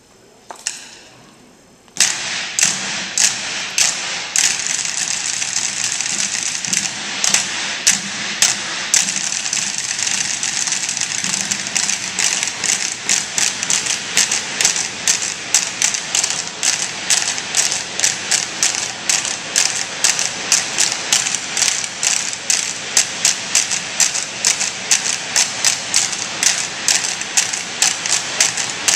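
Group percussion on improvised industrial and safety props: a fast, steady rhythmic clatter of sharp metallic taps and knocks that starts abruptly about two seconds in and keeps going.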